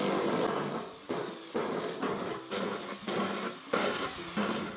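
A handheld drill running, its bit boring through the thin tinplate side of a rice-cracker tin, with background music over it.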